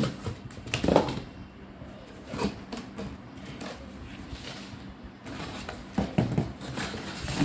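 Plastic wrapping and cardboard box flaps being handled, rustling and crinkling in irregular bursts, loudest about a second in and again around six seconds in.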